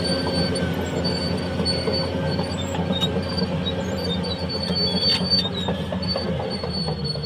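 Caterpillar crawler dozer running with its steel tracks clanking and squealing, metal grinding on metal: the noise of a damaged front idler and track rollers. Under it the diesel engine keeps up a steady low drone.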